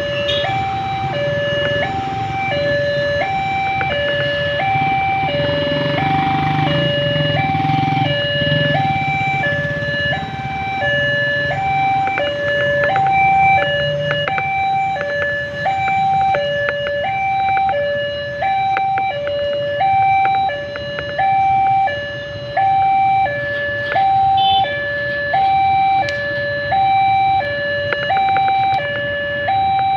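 Electronic warning siren of a railway level crossing, sounding a steady two-tone high-low alarm that switches pitch about every half second. A low rumble runs underneath through the first half.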